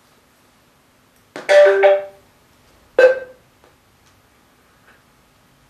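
Bluetooth speaker's electronic prompt tones as it is switched on for pairing: a two-note falling chime about a second and a half in, then a single shorter tone about a second later.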